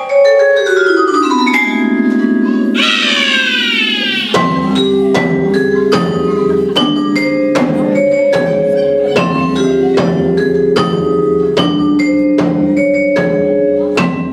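Instrumental music: a falling glide opens it, a rising sweep follows about three seconds in, then a steady beat of struck, ringing notes over a bass line.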